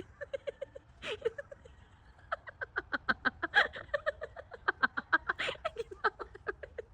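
Poultry calling in a quick series of short, repeated calls, several a second, that grow busier and louder from about two seconds in.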